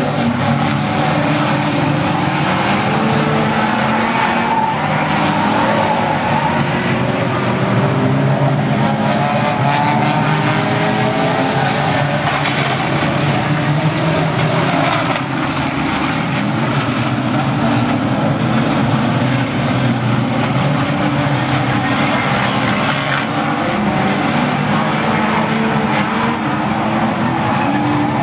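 A pack of banger-racing cars running hard around the track, several engines at once revving up and down without a break.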